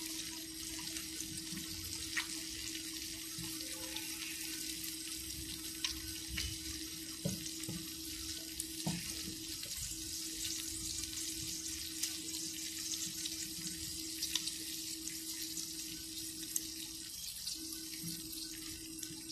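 Saucepan of water, melted butter and oil heating on a gas burner, just starting to simmer: a steady hiss with scattered small pops and crackles. A steady low hum runs underneath, breaking off briefly twice.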